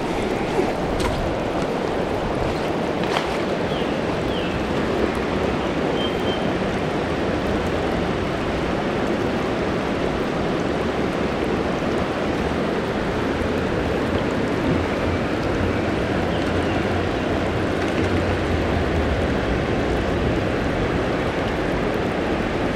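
Mountain river water rushing steadily over rocks, with a few faint short high chirps in the first few seconds.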